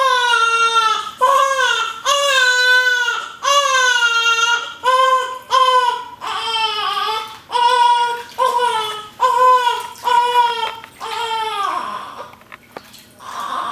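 Newborn baby crying while being bathed: a loud run of about a dozen high-pitched wailing cries, one after another, that die away about twelve seconds in.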